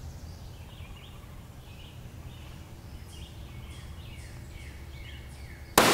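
Birds chirping over a steady low hum, then near the end a single very loud .308 rifle shot, a 152-grain tungsten-core handload fired from a bolt-action rifle, with a long echoing tail.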